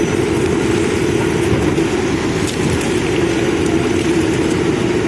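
Backhoe loader's diesel engine running steadily as its rear arm digs.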